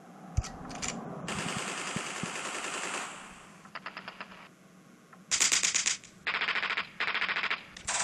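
Bursts of automatic gunfire from a sound effect: a thump, then a hiss, a quick rattle, and four short, loud machine-gun bursts in the second half.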